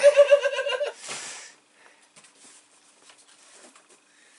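A man's high, pulsing laugh for about the first second, then faint rustling and light clicks of a boxed toy being handled.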